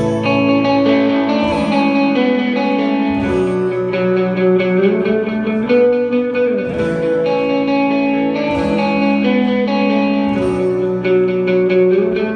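Amplified electric guitar played solo, chords strummed and left to ring, with single-note lines sliding between them.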